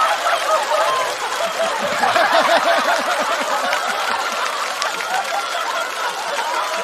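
Studio audience laughing, many voices at once, with a stronger swell of laughter about two seconds in that eases off afterwards.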